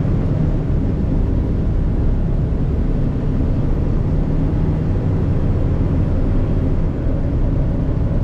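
The 565-horsepower Cummins diesel of a Kenworth T880 dump truck pulling hard at full throttle, heard from inside the cab as a steady low drone, with a brief dip in level about seven seconds in.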